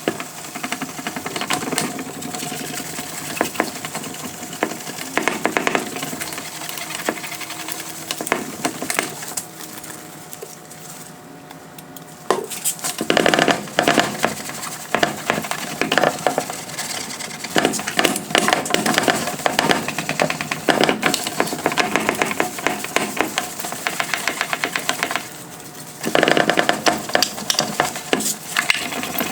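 A towel rubbing lens clarifying compound over a cloudy plastic headlight lens by hand in small, quick circles: a fast, rhythmic scrubbing that polishes off the oxidation. It eases off for a few seconds about ten seconds in and again near the end.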